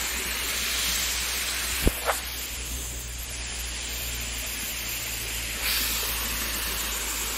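Small waterfall pouring over stepped rock into a pool: a steady rushing hiss of falling water, with one sharp click a little before two seconds in.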